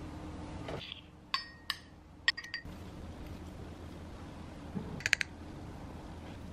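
Spoon clinking against a green glass cup as seasonings are spooned in. There are a few sharp, ringing clinks between one and three seconds in, and another quick cluster of clinks about five seconds in.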